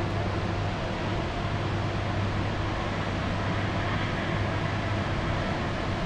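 Hydroelectric power station machinery running: a loud, steady low hum with a few fainter higher tones over a dense rushing noise.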